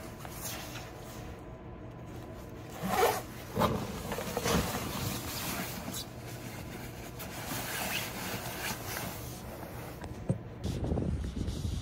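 Zipper on a quilted puffer jacket being pulled up, in two quick rasping pulls about three seconds in, followed by softer rustling of the jacket's fabric as it is settled on.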